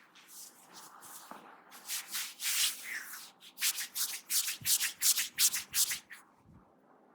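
Hands rubbing through hair in a head massage, a run of rasping friction strokes: a few slower ones at first, then a quick even run of about four or five strokes a second.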